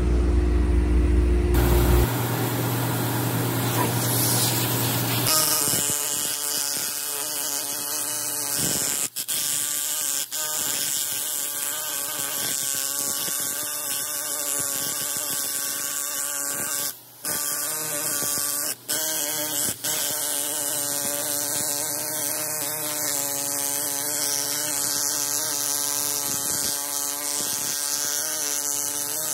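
Angle grinder fitted with a wire wheel brush running against a steel part, scrubbing it clean: a steady high motor whine over a loud scratchy hiss of wire on metal, dropping out briefly a few times. A low engine hum fills the first couple of seconds.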